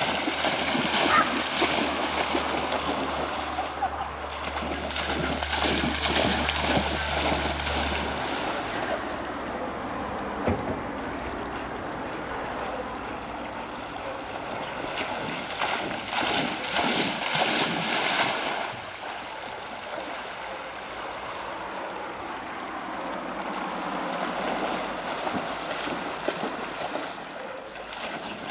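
Appenzeller Sennenhund running and swimming through a shallow river, its legs churning the water into repeated splashing, loudest in the first several seconds and again about two-thirds of the way through.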